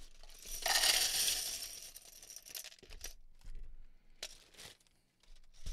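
Black Lego plates poured from a plastic zip-lock bag into a plastic cup: a clattering rush of plastic pieces starting about half a second in and lasting about two seconds, then a few separate clicks as pieces are handled.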